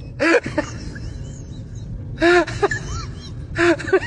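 A woman's short gasping exclamations, three of them about a second and a half apart, each a single rising-and-falling cry, over a steady low background noise.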